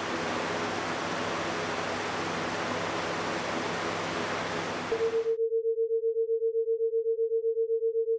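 Box fan running: a steady rush of air with a faint low motor hum. About five seconds in it cuts off suddenly and a single steady electronic tone takes over, pulsing rapidly and evenly.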